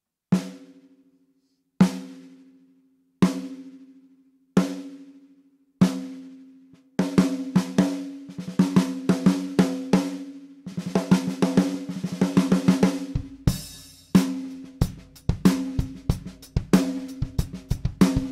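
A 12x7 Australian wandoo stave snare drum: five single strokes about a second and a half apart, each left to ring out, then faster patterns and a dense roll. A little before the last third a bass drum joins in and the snare plays a beat over it.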